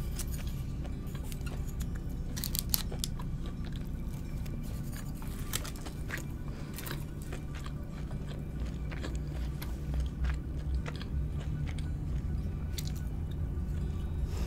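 Close-miked chewing and crunching of crispy Korean fried chicken, with sharp crunches scattered through, over a steady low rumble of a passing train that grows louder near the end.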